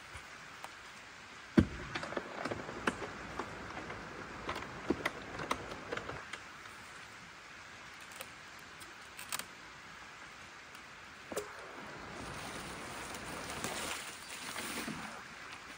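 Scattered clicks and knocks of a hardshell rooftop tent being unlatched and opened, the loudest knock about a second and a half in, over a steady hiss of rain.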